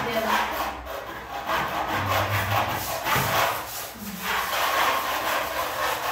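A steady run of rough rasping strokes repeating in a quick rhythm.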